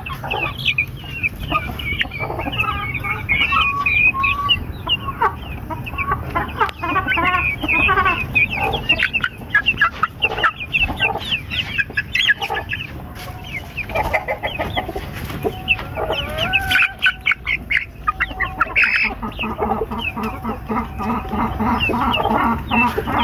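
Young Aseel chickens clucking and cheeping, a steady run of many short high calls with a few longer wavering ones among them.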